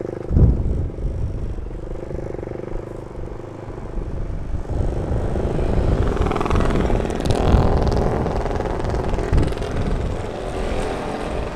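Motorcycle riding at speed: engine running under wind rushing over the helmet or handlebar microphone, with a brief thump about half a second in. The rush grows louder and fuller from about halfway through.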